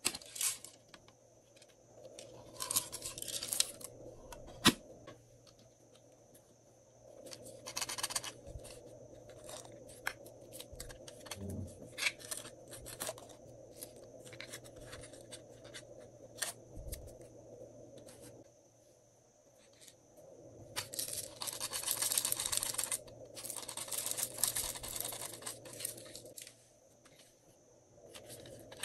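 Small plastic pencil-sharpener toys being handled over trays of slime: several short scratchy bursts of plastic rubbing and rattling, with scattered clicks and light knocks in between.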